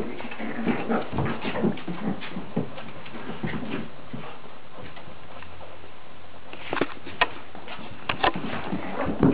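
Dogs play-fighting: a large mastiff-type dog and a small dog make dog noises and whimpers while their claws click and scrabble on a hard tiled floor, with a run of sharp clicks near the end.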